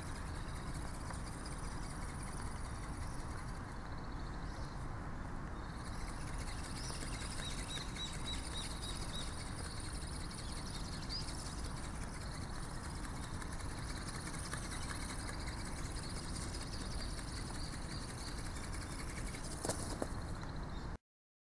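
Steady outdoor noise, mostly a low rumble of wind on the microphone, with a short run of faint high chirps about eight seconds in and a single knock near the end before the sound cuts off suddenly.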